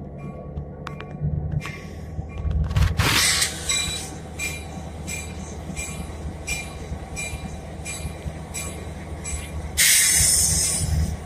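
A train on the move: a steady low rumble with regular clicks about every half-second to two-thirds of a second and a faint steady high squeal. Two louder bursts of rushing hiss come about three seconds in and near the end.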